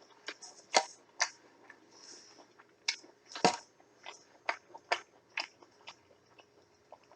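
Close-miked chewing: short wet mouth smacks and clicks at irregular intervals as a mouthful of food is chewed and swallowed.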